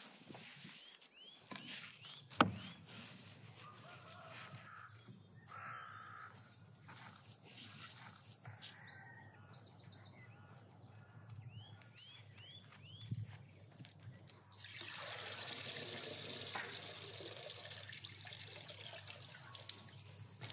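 Water running steadily for the last several seconds, splashing out of a metal bowl. Before that, faint handling sounds, one sharp knock, and birds chirping in short runs of falling calls.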